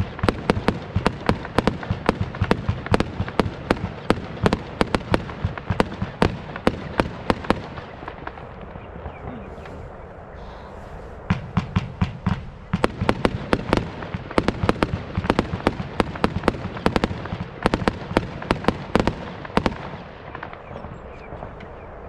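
A Lesli 'Big Blue Box' 90-shot fireworks cake firing in quick succession, sharp shots and bursts several a second. The firing stops for about three seconds partway through, starts again, and dies away a couple of seconds before the end.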